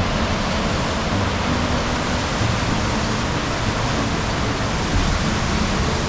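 Steady, loud rush of water from the Merced River and Vernal Fall.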